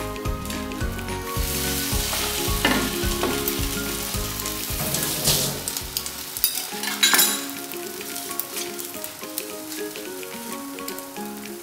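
Egg-soaked bread slices sizzling in butter on a hot non-stick tawa; the sizzle swells about a second in and dies down after about seven seconds.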